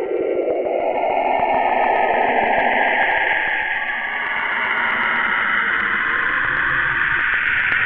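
Saturn's radio emissions recorded by NASA and converted to sound: a steady, noisy hiss that glides upward in pitch over the first few seconds, then sits higher, with faint ticks. The narrator holds that this sound comes from Saturn's rings.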